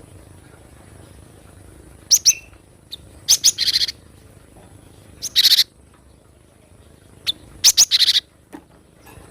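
Cinereous tit (gelatik batu) calling: four short bursts of sharp, quick high notes, a second or two apart.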